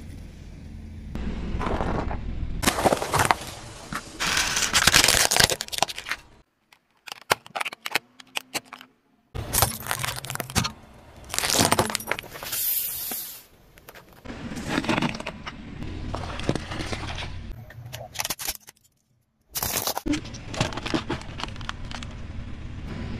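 A car tyre rolling slowly over objects on pavement and crushing them: crunching, cracking and popping sounds in several short bursts. Abrupt cuts separate them, a few with a brief moment of silence.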